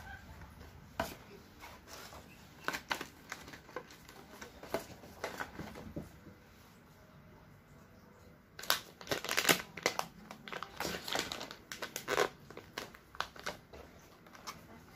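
Retail packaging being handled: cardboard charger boxes tapped and slid on a wooden table, with scattered light clicks. About halfway through comes a louder spell of plastic crinkling as the plastic pouches of data cables are handled.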